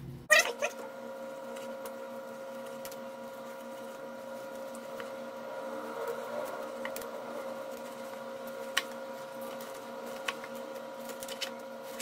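A steady pitched hum from some running machine, with two sharp knocks near the start and a few light scattered clicks of a knife and carving fork against a plastic cutting board as a roast flank steak is sliced.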